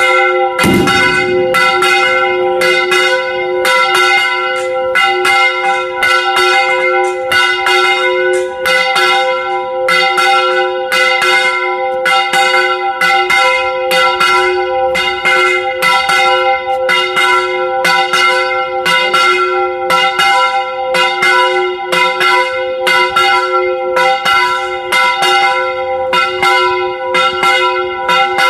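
Church bells rung in a fast festive repique, their clappers pulled by rope, heard up close inside the belfry. The strikes come several a second in an unbroken stream, and each bell's tone rings on under the next strokes.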